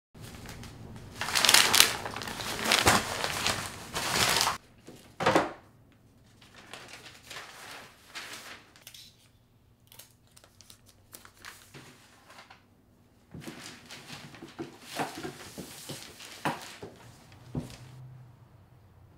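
Clear plastic wrapping crinkling as hands handle it. The crinkling comes in loud bursts over the first few seconds, drops to quieter rustling, then picks up again in the second half.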